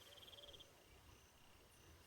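Faint insect trill: a rapid, evenly pulsed high buzz that stops about half a second in, over quiet outdoor background.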